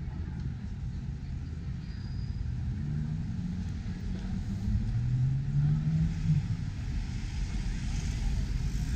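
Road traffic moving through an intersection: a steady low rumble of cars, with one vehicle's engine rising in pitch as it accelerates from about three seconds in, then dropping away a few seconds later.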